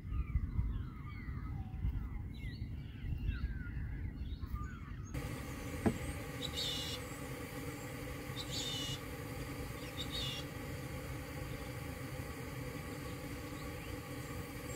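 Birds chirping and calling over a low rumble. About five seconds in, the sound changes to a steady hiss with a faint even hum and three short high chirps.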